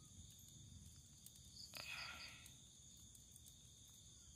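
Faint, steady chirring of crickets, with a brief rustle about two seconds in from hands handling split coconut-frond stems around a fish.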